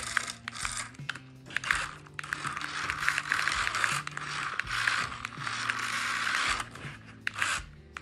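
Small electric motor and plastic gearbox of a toy RC excavator whirring and grinding in repeated spurts, several short ones and two longer runs of about one and a half to two seconds, as its remote buttons are pressed and released. Soft background music underneath.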